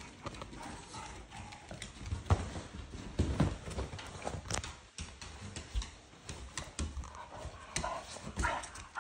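Two Staffordshire bull terriers' claws clicking and scrabbling as they jostle on wooden floorboards and clamber onto a leather couch, with a few thumps as they land, the loudest about two and three and a half seconds in.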